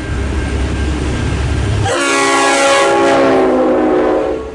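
Low rumble of a passing V/Line N class diesel locomotive, then about two seconds in a single long blast of its RS5T multi-chime air horn. The blast is a loud chord of several tones held for about two and a half seconds before it cuts off.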